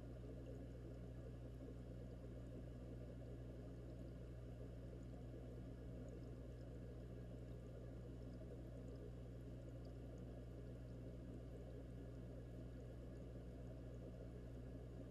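Aquarium air stones bubbling, heard underwater inside the tank as a steady muffled rushing over a constant low hum, with faint scattered ticks.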